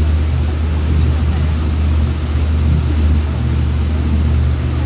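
Motorboat engine running at a steady cruise, a constant low drone, with the rushing wash of its wake.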